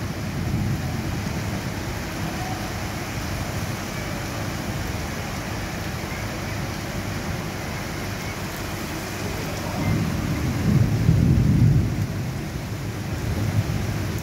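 Heavy rain falling steadily, with a low rumble of thunder swelling about ten seconds in and dying away after a couple of seconds.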